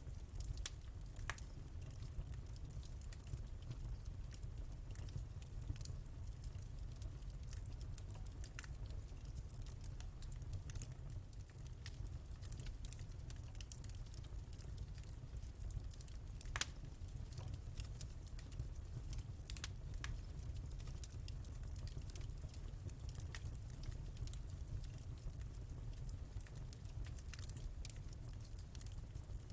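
Wood fire crackling in a fireplace: scattered small pops and snaps over a steady low rumble, with one sharper pop a little past halfway.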